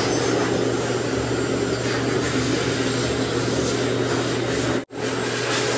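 Pet blow dryer running steadily through its hose and nozzle onto a husky puppy's damp coat: a constant rush of air over a low motor hum, broken by a split-second dropout near the end.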